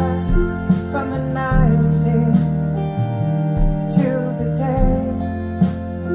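Music playing through a pair of Bowers & Wilkins Formation Duo wireless speakers: a woman's song with instrumental accompaniment, in a pause between sung lines.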